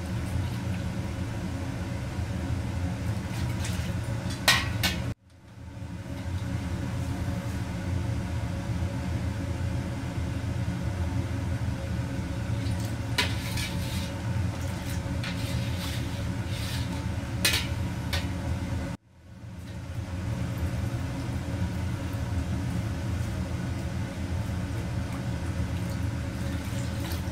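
A metal ladle clinking and scraping a few times against a steel wok while sauce is stirred, over the steady low rumble of a commercial kitchen range. The rumble drops out briefly twice.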